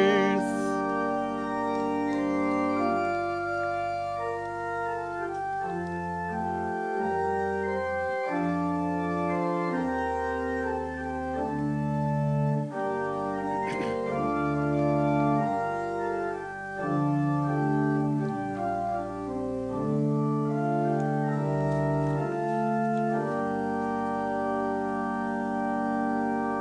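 Church organ playing slow, held chords, each lasting about a second, with low pedal bass notes beneath.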